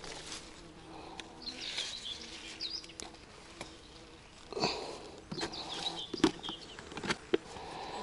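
Grass and leaves rustling and snapping close by as wild strawberries are picked by hand, with a few sharp crackles in the second half. Small birds chirp in the background.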